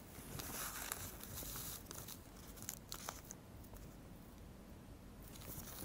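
Oil paper crinkling faintly as it is unfolded by hand, with a few light ticks; the rustling dies down after about three seconds.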